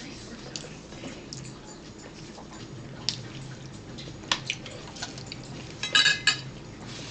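Table noises: a plastic fork tapping and scraping on a paper plate in a few sharp clicks. About six seconds in, a plastic cup being picked up gives a louder cluster of clicks and rattles.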